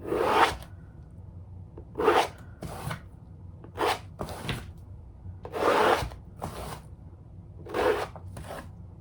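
Palette knife scraping wet acrylic paint across a canvas in repeated short strokes, about seven of them at irregular intervals.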